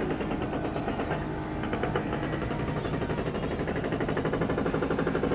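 Marine diesel engine of the sailing schooner HMS Falken running as she motors in, a steady, rapid, even thumping beat that grows a little louder in the second half.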